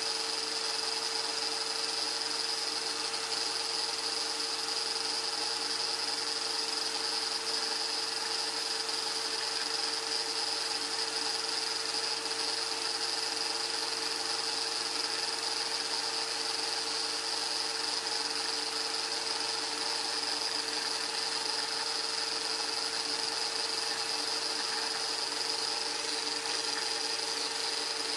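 Small electric motor spinning the metal can spinner head of a homemade cotton candy machine, running at a constant speed with a steady whine.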